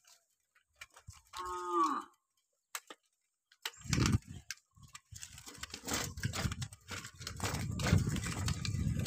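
A cow gives one short moo about a second and a half in. From about four seconds on there is continuous uneven rumbling and rattling as a bicycle is ridden over a rough dirt path.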